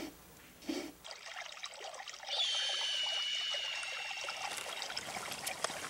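Water trickling, with a long high whistled tone that falls slightly about two seconds in, and a few soft ticks near the end.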